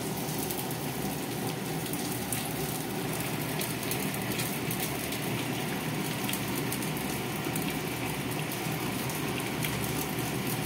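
A pot of vegetable and shrimp broth boiling hard on a gas stove, with fish frying in oil in a pan beside it: a steady bubbling, sizzling hiss with fine crackles throughout.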